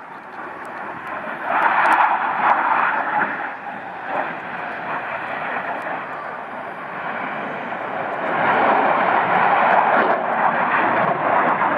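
Boeing F/A-18 Hornet jet engines passing low overhead: a loud rushing jet noise that swells about a second and a half in, eases off, then swells again about eight seconds in.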